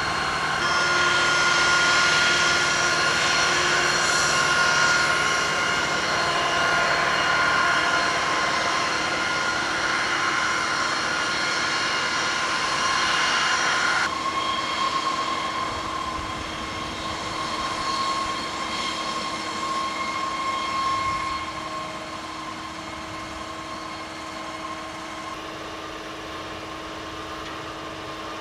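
Flight-line machinery running: a steady high whine over a rushing hiss, from aircraft and ground support equipment on the ramp. The sound changes abruptly about halfway through and gets quieter about three-quarters of the way in.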